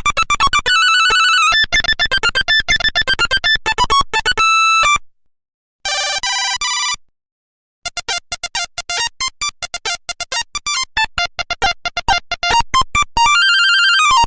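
Nokia 1100 monophonic ringtones playing: fast runs of short, beeping electronic notes. One tune stops about five seconds in, a short phrase of about a second follows after a pause, and after another pause a new rapid tune starts and ends on a longer held note.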